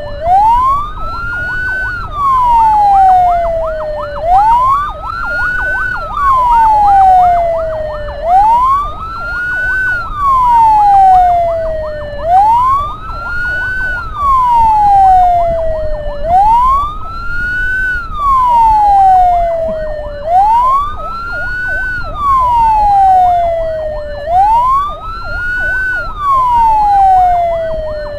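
Ambulance siren wailing, each cycle rising for about two seconds and falling for about two, repeating evenly, with a faster yelping tone layered over it. A low rumble of road and engine runs underneath.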